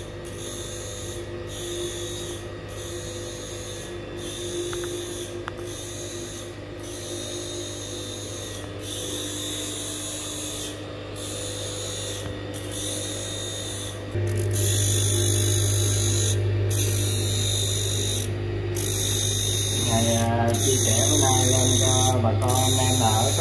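Electric blade-sharpening machine running with a steady motor hum. Over it is a high, hissing grind broken by short gaps every second or two, as a blade is worked against it. The machine gets louder about two-thirds of the way through.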